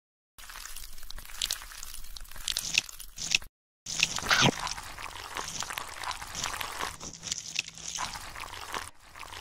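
Fish splashing and thrashing in shallow muddy water: a wet sloshing crackle with scattered sharp snaps. It drops out to silence briefly at the start and again about three and a half seconds in.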